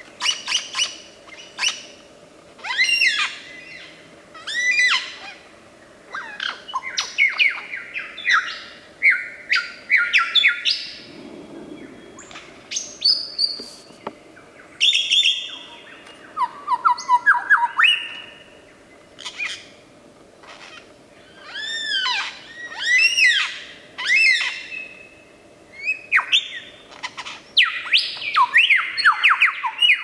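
Lyrebird singing a fast-changing medley of loud whistles, arching chirps and rapid rattling trills, in bursts with short gaps. A dense run of rapid notes comes near the end.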